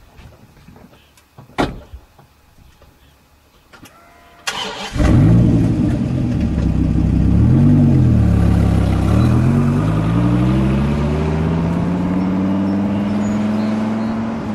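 A few clicks, then about four and a half seconds in a Dodge Viper's V10 cranks and catches. It revs up and down once, then runs with a steadily rising pitch as the car pulls away.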